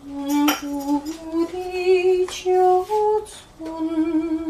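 A voice humming a slow tune: held notes that step up and down, the last one wavering, with a couple of faint clicks between notes.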